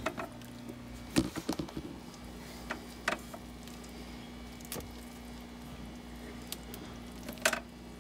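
Hands pulling wet hair algae and plant clumps out of an aquarium paludarium: scattered light clicks, knocks and squishy rustles, loudest near the end, over a steady low hum.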